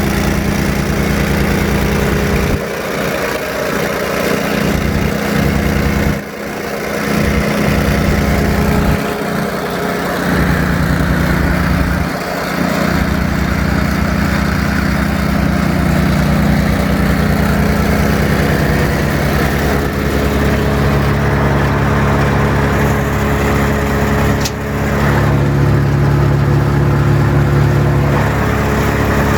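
Brush Bandit 65XP wood chipper's 25-horsepower Kohler engine running. Its note dips and shifts several times in the first dozen seconds, then runs steadier.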